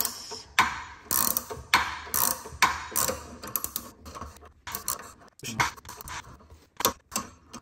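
Ratcheting wrench clicking in short runs as it turns the forcing screw of a jaw puller pulling on a Porsche Cayman S front wheel hub and bearing.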